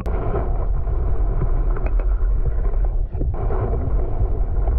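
Steady low rumble and water noise picked up by an underwater camera in its housing, with a few faint ticks; a sharp click right at the start.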